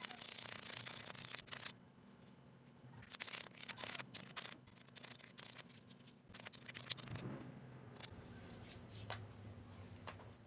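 Hands patting and rubbing the face, faint rustling in several short bursts with a few sharp light slaps on the skin.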